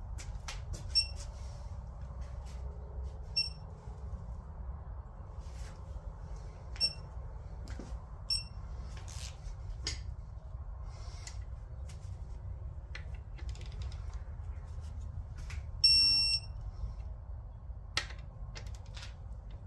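Several short, high electronic beeps at irregular intervals, the loudest and longest about sixteen seconds in. Scattered sharp clicks and knocks sound among them over a steady low hum.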